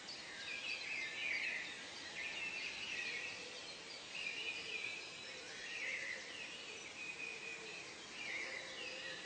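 Natural soundscape of birds calling, short phrases repeating every second or so over a steady background hiss.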